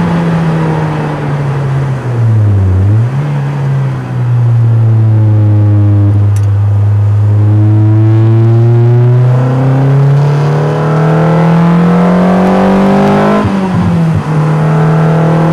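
Car engine heard from on board over wet-road tyre hiss. The revs dip briefly about two seconds in and hold low and steady, then climb gradually for several seconds. Near the end the pitch drops abruptly and settles steady.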